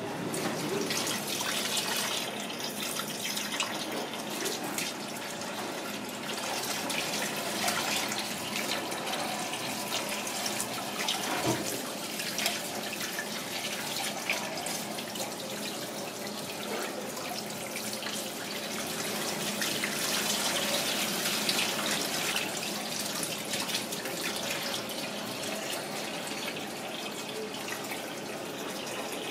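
Tap water running steadily into a stainless steel sink and bowl, splashing over raw cuttlefish tentacles as they are rinsed by hand, with a few small knocks.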